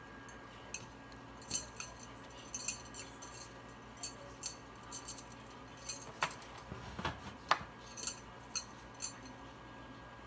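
Scattered light clicks and clinks of kitchen utensils on a plastic mixing bowl and an aluminium foil roasting pan as sauce is spooned over a meatloaf, with a soft low thump about seven seconds in.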